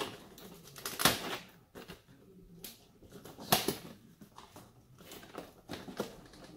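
Cardboard packaging being handled and pressed, with sharp crinkling clicks: two loud ones about a second in and three and a half seconds in, and a few smaller ones near the end.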